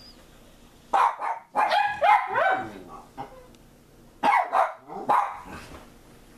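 Pet dogs barking in short bursts: a few barks about a second in, a longer run around two seconds in, and more between four and five seconds in.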